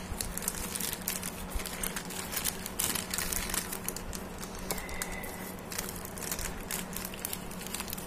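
Plastic courier mailer bag crinkling and crackling as hands handle it and tear it open, with many small irregular crackles.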